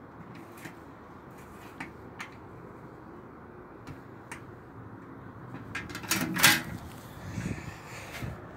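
A few light clicks from a school locker's combination lock being worked, then the metal locker door unlatched and pulled open with a clatter about six seconds in.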